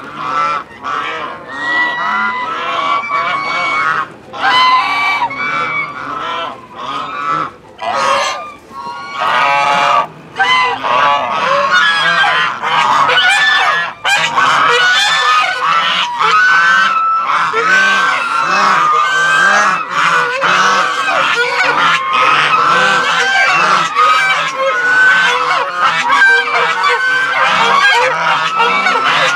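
A flock of Chinese geese honking at close range, many calls overlapping. The calling comes in broken spells at first, then from about ten seconds in runs as a continuous chorus.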